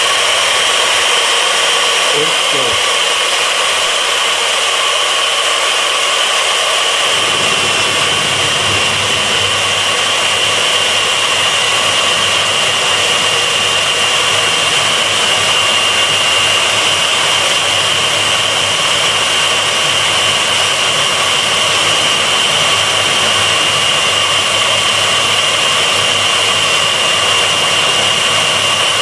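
Fein KBM 50 Auto magnetic core drill running in high gear with a steady high whine. About seven seconds in, a rougher cutting noise joins in as the annular cutter bites into the 12 mm S235 steel plate under automatic feed, drilling a 20 mm hole.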